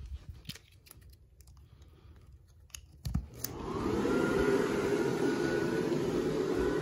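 A few light handling clicks, then about three seconds in a click as the power comes on and the inflatable's YF-125 blower fan starts up. Its whine rises as it spins up, then settles into a steady whir of blowing air.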